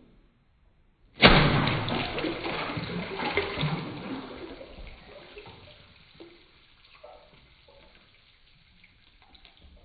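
A LEGO helicopter model splashing into a tub of water: a sudden splash about a second in, then churning water that dies away over several seconds, with a few faint drips near the end.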